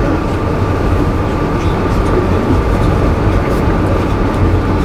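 Steady low rumble of a Grand Canyon Railway passenger car rolling along the track, heard from inside the car, with a thin steady tone above it.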